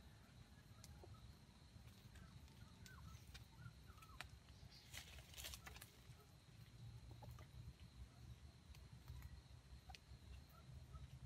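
Near-silent forest-floor ambience: a red junglefowl rooster scratching in dry leaf litter, heard as a brief rustle about five seconds in, over faint chirps of small birds.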